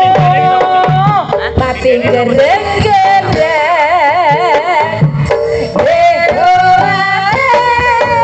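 Javanese jaranan gamelan music played loud over loudspeakers: kendang hand drums beat a steady pattern under a high melodic lead that holds long notes and wavers in pitch about halfway through.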